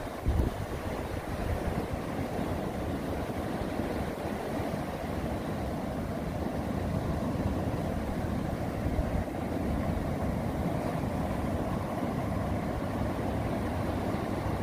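Steady low rush of ocean surf breaking on the beach, with wind buffeting the microphone. A brief louder low thump comes just after the start.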